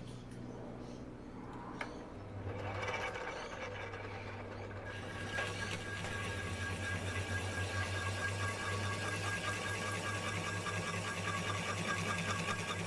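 A small bench lathe's motor starts about two seconds in and runs with a steady hum. From about five seconds in, a hand-held deburring blade scrapes the edge of the spinning metal part's bore, giving a steady hiss.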